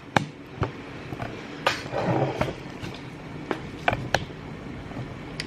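A few scattered light clicks and knocks from objects being handled, with a brief rustling shuffle about two seconds in.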